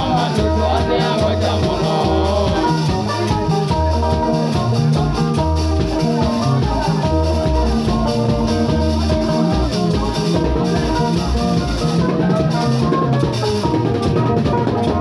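Loud live band music: Stratocaster-style electric guitars playing over drums and a repeating low bass pattern, steady throughout.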